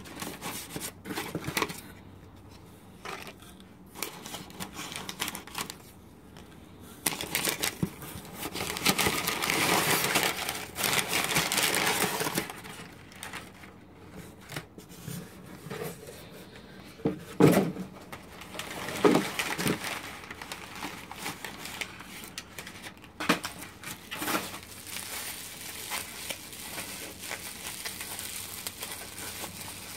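Crumpled packing paper rustling and crinkling as hands dig through a cardboard box, loudest in a long stretch of rummaging, with scattered bumps and clicks against the cardboard. Near the end, plastic bubble wrap is handled and crinkles.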